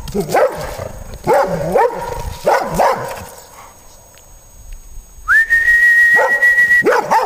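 Airedale terrier barking, short barks coming in pairs, then a person's long whistle that slides up and holds on one pitch for about a second and a half, with a couple more barks near the end.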